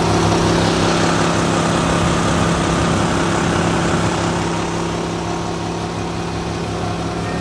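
Duck boat's outboard mud motor running steadily at speed, a low steady hum under rushing wind and water spray.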